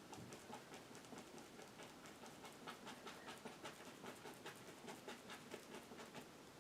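Faint, quick, uneven run of soft taps and scratches from a paintbrush dabbing acrylic paint onto canvas, stippling grass texture.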